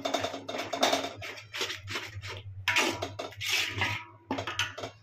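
A spatula scraping and stirring thick masala paste frying in oil in a kadhai, in quick repeated strokes about three a second, with the oil sizzling. The masala is being fried (bhuna) until it releases its oil.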